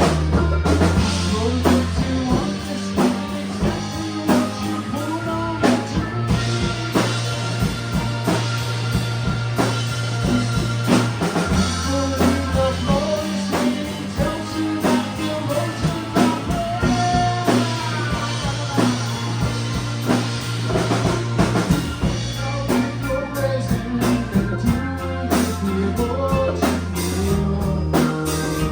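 A rock band playing: guitar over a drum kit keeping a steady beat, with bass notes that change every few seconds.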